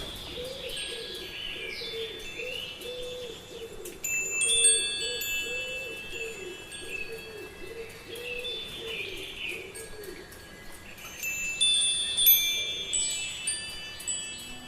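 Wind chimes ringing, with two louder clusters of strikes about four seconds in and near the end, over repeated bird calls.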